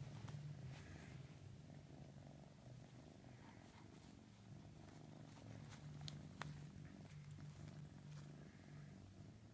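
RagaMuffin-mix kitten purring steadily and faintly, with two sharp clicks about six seconds in.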